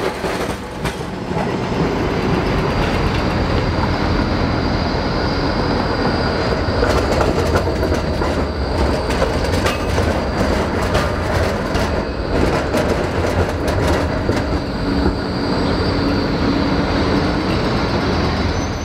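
Electric street trams rolling through the intersection, with a cluster of sharp clacks partway through as the steel wheels cross the rail junctions and a thin high wheel squeal. Steady city traffic fills the gaps.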